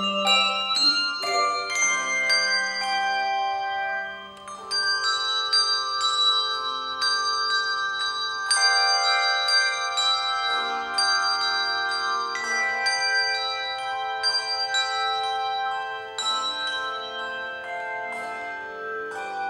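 Handbell choir playing: struck handbells ringing in chords whose tones ring on and overlap. The sound thins out briefly about four seconds in, then fuller chords enter, with a larger chord about eight and a half seconds in.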